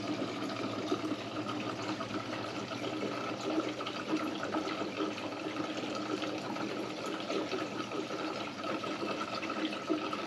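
Diesel fuel pouring in a steady stream from a tipped plastic jerry can's spout into another jerry can, as fuel is decanted between cans.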